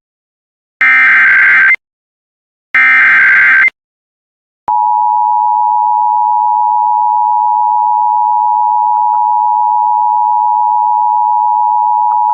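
Emergency Alert System SAME header data bursts: two harsh, rapid warbling bursts about a second long and a second apart. About four and a half seconds in, the steady two-tone EAS attention signal (853 and 960 Hz) starts and holds. Together they announce a broadcast emergency alert.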